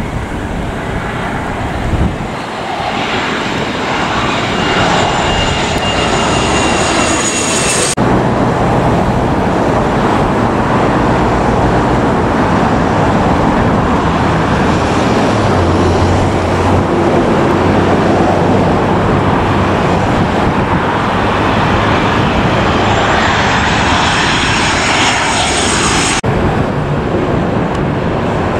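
Jet airliners on landing approach passing low overhead: a steady engine roar with a high fan whine over the first few seconds. The sound cuts abruptly about 8 seconds in and again near the end as one plane gives way to the next.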